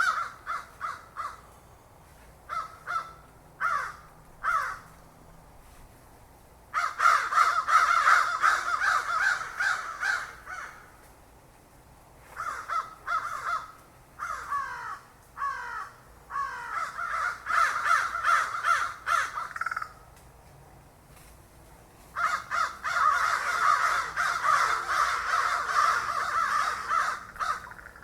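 Crows cawing: a few separate caws in the first seconds, then several long stretches of many caws overlapping at once, with short pauses between them.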